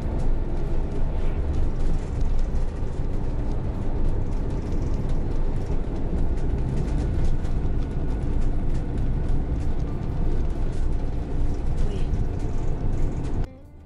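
Steady engine and road noise inside a diesel motorhome's cab while driving. It cuts off suddenly near the end.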